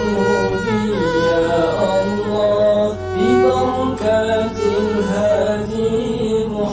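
Men's voices singing an Arabic devotional qasidah into microphones, drawn out in long melismatic lines.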